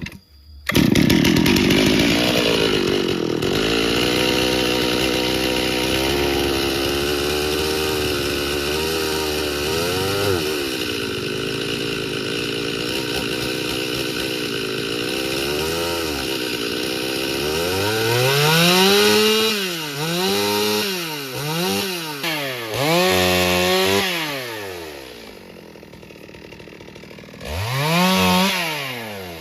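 Chainsaw engine running at high speed and steady for about fifteen seconds, then revved up and down several times, dropping to idle, and revved once more near the end.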